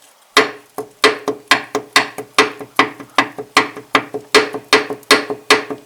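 Loose connecting rod in a Honda K24 engine, rocked up and down by hand with the oil pan off, knocking against its crank journal: a sharp metallic clack about two and a half times a second, each with a short ring. The free play is the sign of a worn, spun big-end bearing in cylinder two.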